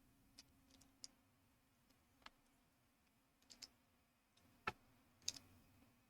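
Faint clicks of small plastic building bricks being handled and pressed into place, a scattering of single sharp clicks, the loudest two near the end.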